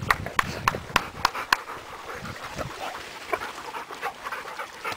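A dog panting, with a run of sharp clicks in the first second and a half.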